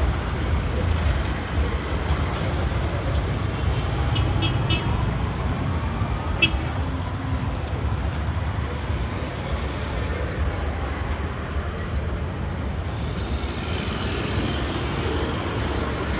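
Steady rumble of street traffic, with a few brief light clicks between about four and six and a half seconds in.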